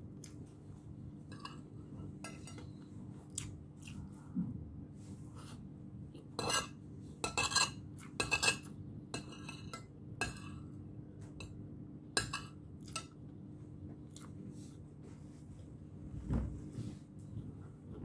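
Metal spoon and fork clinking and scraping against a ceramic plate while scooping up food, in a string of short sharp strokes that come thickest about six to nine seconds in.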